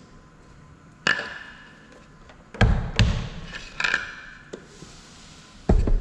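A series of separate knocks and clunks as a wooden board and tools are handled and set down on a steel machine vise. Some are heavy thuds and some carry a brief metallic ring.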